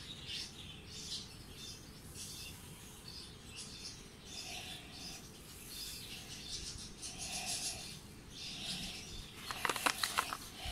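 A sheet of paper handled and folded into a cone by gloved hands, rustling and crinkling in short bursts, with a louder run of sharp crackles near the end.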